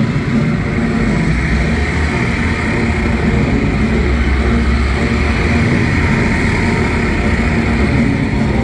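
Loud, steady engine drone as a mock-up propeller plane rolls onto a stunt-show stage.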